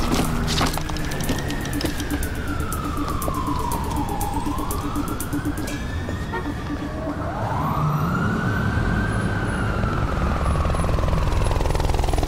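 Emergency-vehicle siren wailing, its pitch slowly rising and falling about three times, over a steady low rumble.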